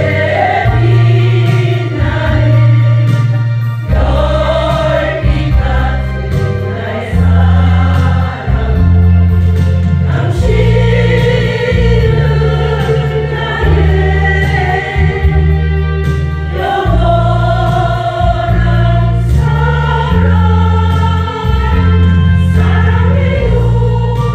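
Women's choir singing a song together, held sung notes over a low accompaniment whose chords change every second or two.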